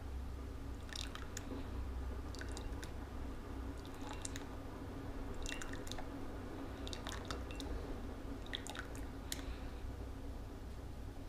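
Metal teaspoon stirring a drink in a ceramic mug, clinking lightly against the sides in short clusters of two or three clinks about every second and a half. A low steady hum sits underneath.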